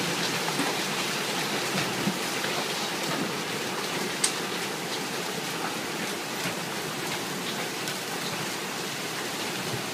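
Hailstorm with heavy rain pouring down: a steady dense hiss with scattered sharp ticks, and one louder crack about four seconds in.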